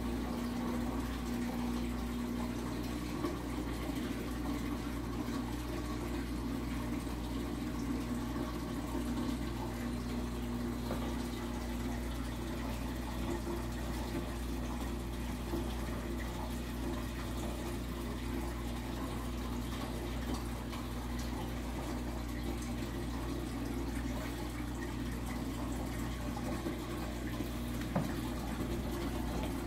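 Reef aquarium's water circulation: water running and splashing steadily over a low, even pump hum, with one short tick near the end.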